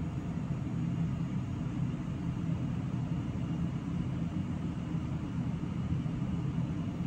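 Steady low background rumble with a faint hiss above it, unchanging throughout.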